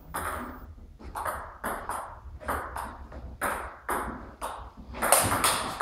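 Table tennis rally: the celluloid ball clicks in quick alternation off the Tibhar table and the players' bats, a sharp tick every half second or so. A denser, louder burst of noise comes near the end.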